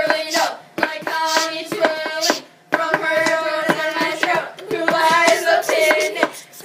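Young voices singing held, wordless notes in short phrases, with rhythmic hand clapping, about four to five claps a second, throughout.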